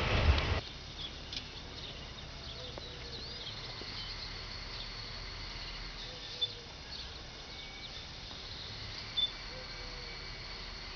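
Summer field ambience: a steady high chirring of insects, with short bird chirps now and then, two of them sharper about six and nine seconds in. A train's noise fills the first half second and then cuts off abruptly.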